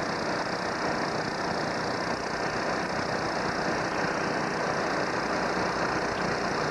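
Suction dredge's small gasoline engine and pump running steadily while the dredge sucks silt from the creek bed.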